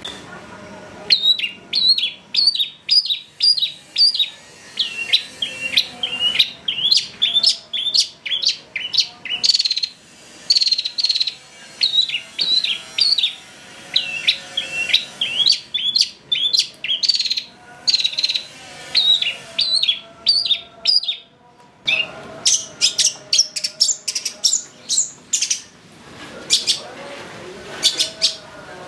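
Long-tailed shrike (cendet) singing a fast, continuous string of short, sharp high notes, several a second. After a brief pause about 21 seconds in, the notes come back higher and harsher.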